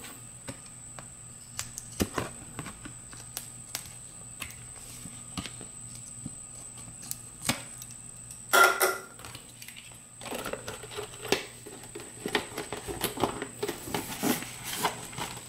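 Scissors snipping a notch in a plastic coffee-can lid: scattered sharp clicks and one louder crunch a little past the middle, then a run of plastic clicking and creaking as the lid is pressed back onto the can.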